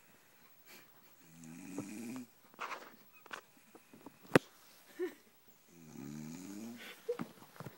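A woman snoring heavily in her sleep: two long, rattling snores about four seconds apart. Between them come a few short sharp sounds and one sharp click about halfway through.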